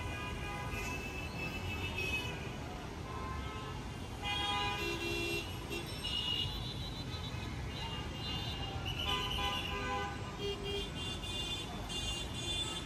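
Busy road traffic with a steady rumble of engines and tyres under frequent, overlapping vehicle horn toots, some short and some held for about a second.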